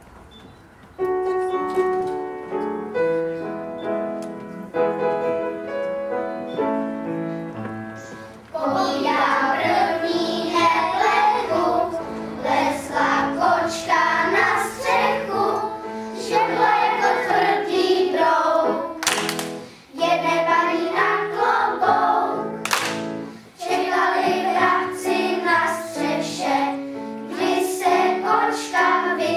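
A piano starts an introduction about a second in, playing struck chords, and about eight seconds in a choir of young children joins in singing a song to the piano accompaniment.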